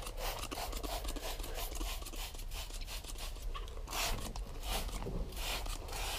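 Spray bottle of interior cleaner misting onto a car seat: a few short hissing squirts, the clearest about 4 and 5 seconds in. Gloved hands rustle and click against the bottle.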